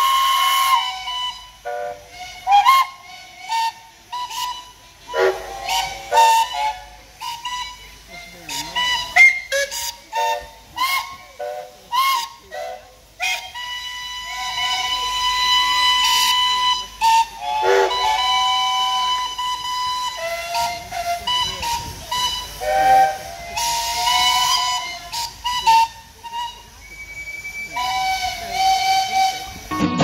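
Many steam traction engines and steam rollers sounding their steam whistles together: overlapping toots at several different pitches, short blasts and longer held notes, some sagging in pitch, with bursts of steam hissing between them.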